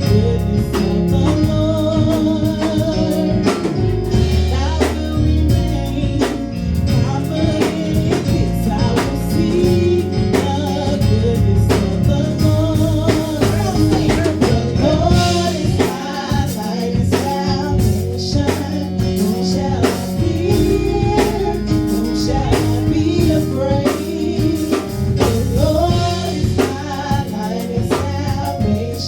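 Gospel worship song performed live by a band with drums, with singing over it.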